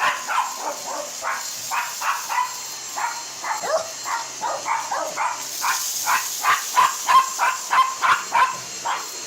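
Dog barking continuously, about three barks a second, over the steady high hiss of a Dyson DC62 cordless stick vacuum running.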